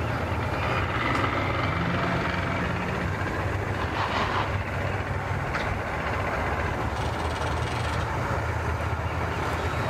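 Outboard motor running steadily at low speed in gear, a low hum, as the boat is driven up onto its trailer.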